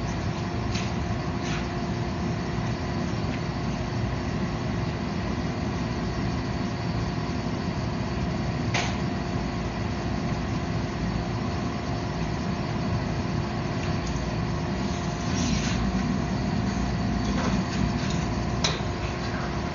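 Steady running noise of a forge and hydraulic press motor, with a constant hum and a few brief light knocks. The forge is bringing a Damascus billet back up to forging temperature.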